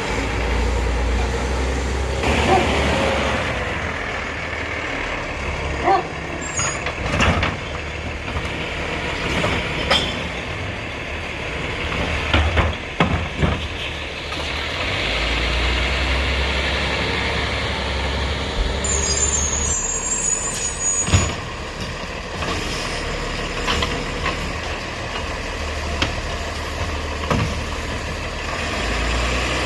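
Automated side-loader garbage truck (Autocar with a Heil Python arm) working at the curb: the engine rumbles steadily under repeated knocks and clatter from the lift arm and the cans, with a short high squeal about two-thirds of the way through.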